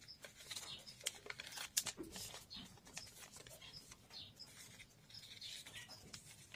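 Faint paper rustling and crinkling as hands crease and fold a small sheet of notebook paper into a paper boat, with many small crisp crackles.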